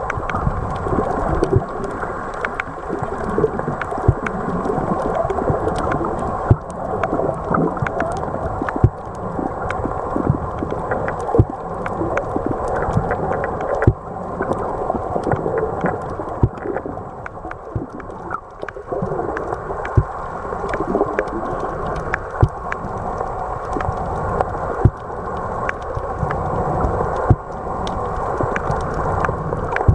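Underwater sound heard while snorkeling: a muffled, rushing water noise with many scattered sharp clicks.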